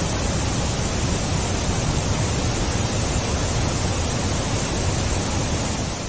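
Waterfall: the steady rushing hiss of falling water, even and unchanging.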